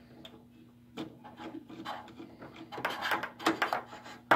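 Screwdriver working a wire-terminal screw on a breaker in a metal solar combiner box: short scraping rasps and light clicks, with one sharp click near the end.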